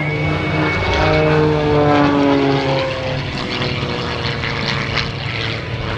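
Edge 540 aerobatic plane's propeller and six-cylinder Lycoming engine running. The note falls in pitch over the first few seconds, then holds lower and steady.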